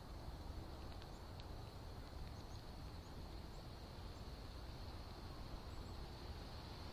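Faint outdoor ambience on a trail camera's microphone: a steady low rumble and hiss with a thin high whine, and a few faint, short, high bird chirps.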